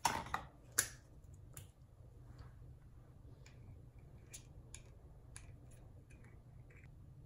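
Metal lipstick tube being opened and handled, giving a series of small sharp clicks. There is a louder cluster of clicks in the first second, then fainter clicks every half second or so in the middle.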